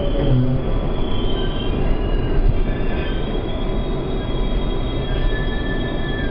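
R142A subway car running on the rails with a steady low rumble, its steel wheels squealing in several high thin tones that come and go.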